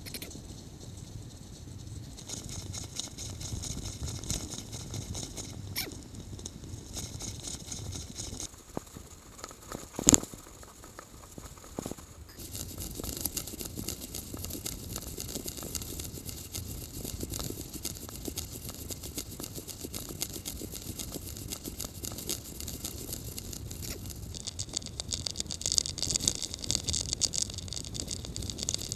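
Continuous rattling and rolling noise from a bicycle and its handlebar-mounted camera riding over paths, with one sharp knock about ten seconds in and a brighter hiss from about twelve seconds on.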